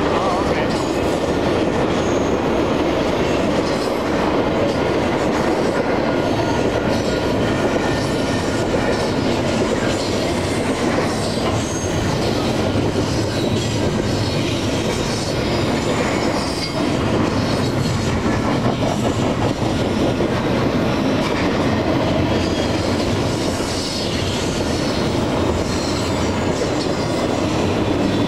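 Freight train of autorack cars and then double-stack container cars rolling past at close range: a steady rumble and clatter of steel wheels on the rails, with faint high wheel squeals.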